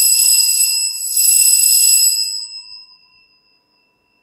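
Altar bells rung at the elevation of the chalice during the consecration: a cluster of small bells ringing, swelling again about a second in, then fading away by about three seconds in.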